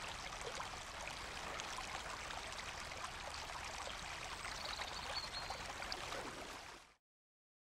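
Shallow stream running over rocks: a steady water noise that cuts off abruptly about seven seconds in.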